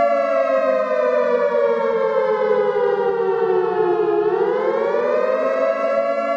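Siren sounding a steady multi-tone wail that slowly slides down in pitch for about four seconds, then rises quickly back to its first pitch and holds.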